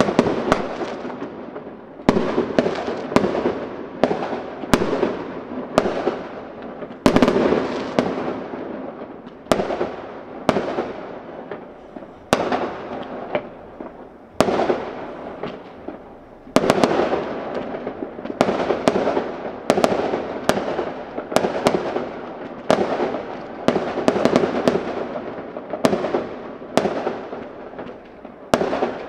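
Aerial firework shells bursting one after another, about one bang every second or two with some in quick pairs, each sharp bang followed by a fading echo.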